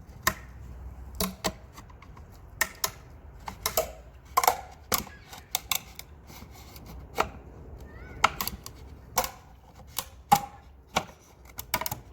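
Sharp, irregular cracks and clicks as hardened glue breaks away while a plastic cover is pried, a little at a time, off a valve cover baffle holding the spark plug tube seals.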